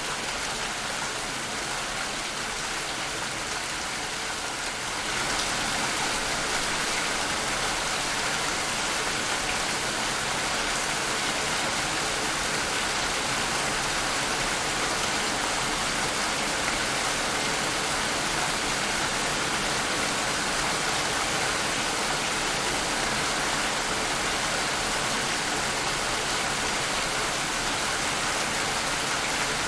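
Steady rain falling, an even hiss of drops that becomes a little louder about five seconds in.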